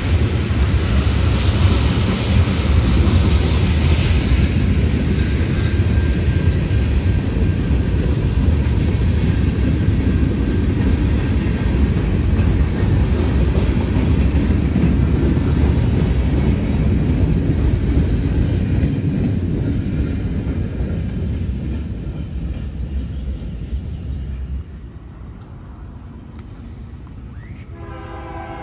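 Norfolk Southern freight cars (tank cars, then gondolas) rolling past with a steady rumble and rattle of steel wheels on rail. The sound fades and drops away about 25 seconds in as the last car clears. Near the end a diesel locomotive's horn starts to blow from an approaching train.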